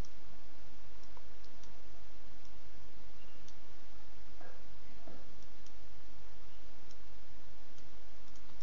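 A handful of faint, scattered computer mouse clicks over a steady microphone hiss and low hum.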